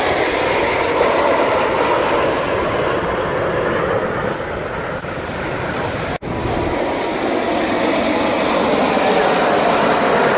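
Steady roar of low-flying military jet fighters in formation passing overhead, with the pitch of the engine noise slowly shifting. The sound cuts out for an instant about six seconds in.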